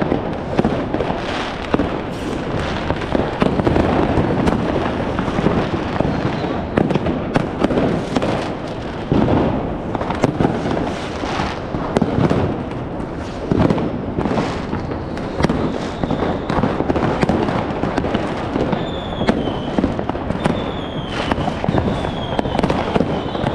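New Year's Eve fireworks and firecrackers going off all around, a constant crackle of bangs and pops. Near the end there are a few short falling whistles, about one a second.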